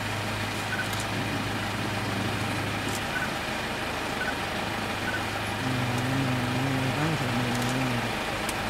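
Vehicle engine idling with a steady low hum. About two-thirds of the way in, a second low droning tone comes in for about two seconds.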